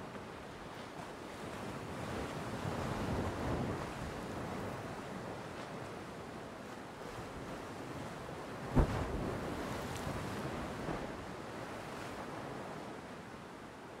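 Ocean surf breaking and washing up the beach, a steady rush that swells about two to four seconds in. One sharp thump stands out about nine seconds in.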